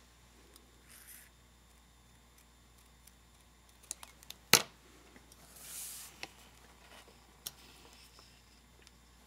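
Scissors and paper being handled at a craft table: a few light clicks, one sharp click about halfway through, then a brief paper rustle.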